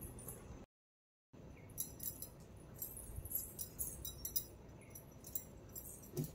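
Faint, scattered light jingling and clinking of bangles on a wrist and small brass puja items being handled and set down on a shrine. The sound cuts out completely for a moment about a second in.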